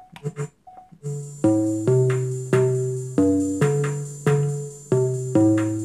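Music played at full volume through a Spigen R12S Bluetooth speaker, with a strong bass line. After a short broken start, a steady beat of sharply struck notes that die away comes in about a second in, roughly two a second.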